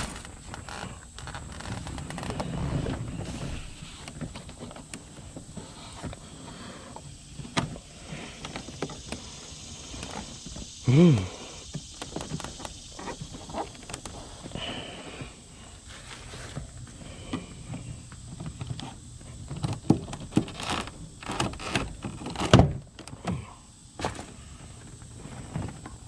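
Scattered knocks, clunks and rustling of hands working inside a vehicle's interior, pulling speaker wire under seats and trim panels. A short pitched squeak or grunt comes about eleven seconds in, and a cluster of sharper thumps comes near the end.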